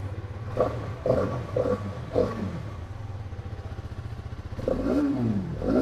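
Hero Karizma XMR's 210 cc DOHC single-cylinder engine idling on its stock exhaust and blipped on the throttle: four quick revs in the first two seconds or so, then two longer revs near the end, each falling back to idle.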